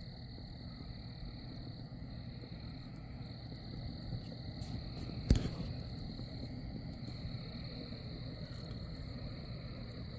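A steady high-pitched animal chorus over a low, even rumble, with one sharp knock about five seconds in.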